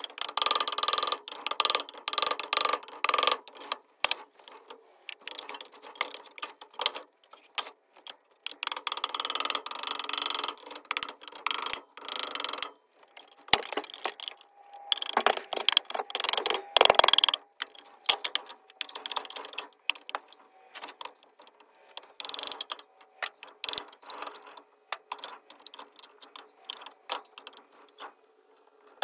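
Claw hammer striking a wooden board in quick runs of sharp taps with short pauses between, denting the wood surface.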